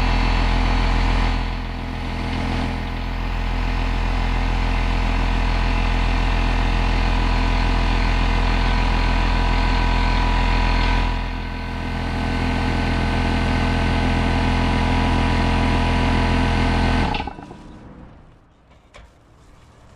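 An engine running steadily, dipping briefly in level twice, then shut off suddenly about 17 seconds in.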